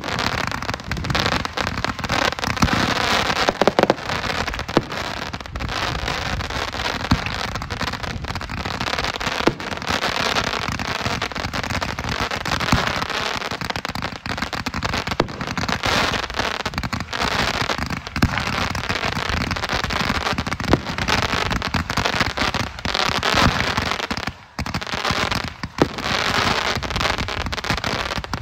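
Ground-launched fireworks going off continuously: dense crackling and popping with sharper bangs scattered through, easing into a brief lull about three-quarters of the way in before picking up again.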